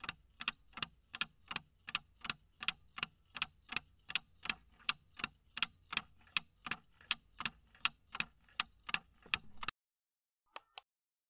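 Clock-ticking sound effect for a quiz countdown timer, even ticks at about two to three a second. It stops about ten seconds in, and two quick sharp clicks follow near the end.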